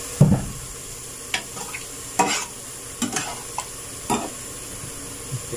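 Beef skin sizzling and bubbling in fat in a large aluminium pot, with a spoon stirring and scraping in a metal pot beside it: about six short knocks and scrapes, the loudest a low knock just after the start.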